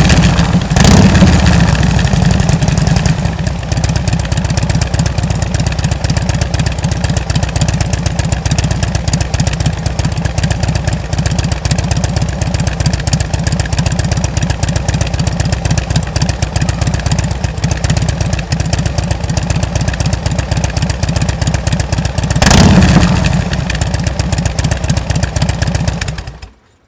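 Harley-Davidson V-twin motorcycle idling through its exhaust pipes, with a short throttle blip about a second in and a louder rev near the end, then the engine stops suddenly.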